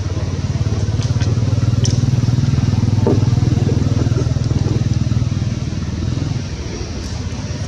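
A steady, low engine drone, like a motor vehicle running nearby, with a fast even pulse; it eases off a little about six seconds in.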